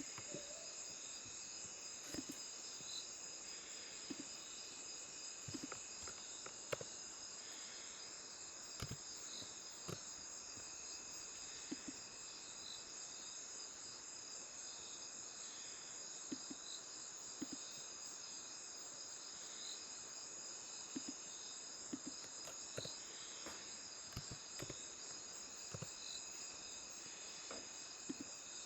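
Crickets chirring in a steady, faint, high-pitched chorus, with a short chirp repeating about once a second. Scattered soft clicks fall over it.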